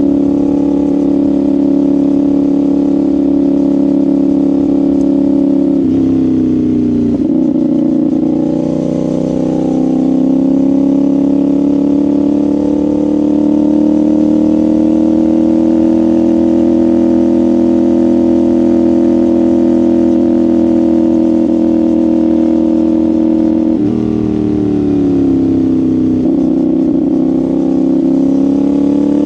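CFMoto 450SR's parallel-twin engine and exhaust under way at steady cruising revs. The revs drop sharply about six seconds in and climb again, then ease off and dip once more before rising near the end.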